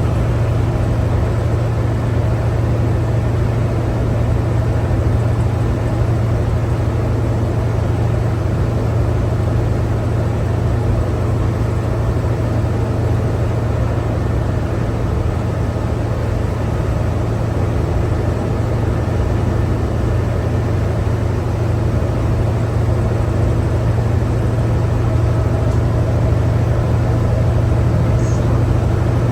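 Cummins ISL9 diesel of a New Flyer D60LFR articulated bus running at a steady speed, heard from inside the cabin: an even low drone with road and tyre noise, neither revving up nor down.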